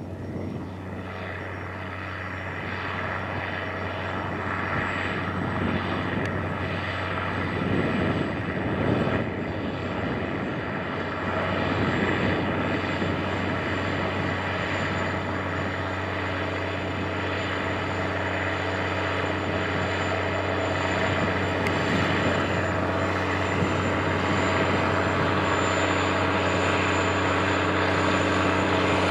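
Case IH 535 Quadtrac tractor's diesel engine running steadily under load while pulling a vertical tillage implement through the soil, growing gradually louder as the tractor approaches.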